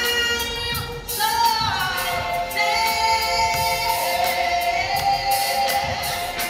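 A woman singing long, held notes over a backing track with a steady beat.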